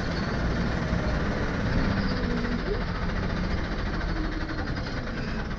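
Inside a moving single-deck bus: steady low rumble of the engine and road noise.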